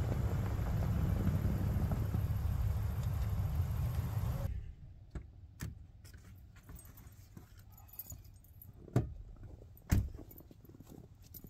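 A steady low rumbling noise that cuts off abruptly about four and a half seconds in, followed by quieter scattered clicks and knocks, with two sharper knocks about a second apart near the end.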